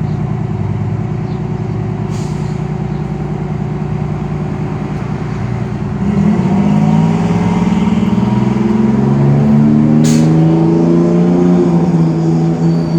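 A motor vehicle's engine running steadily, then revving up about six seconds in, its pitch rising and the sound growing louder as it pulls away. There is a brief hiss about ten seconds in.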